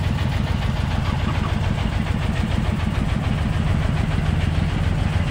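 Construction machinery engine running steadily at a constant speed, with an even, rapid throb.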